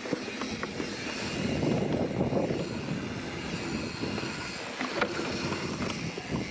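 Riding noise from a hardtail mountain bike on plus-size Teravail tyres rolling along a dirt trail: steady tyre rumble and wind on the microphone, with a few light clicks and one sharp knock about five seconds in.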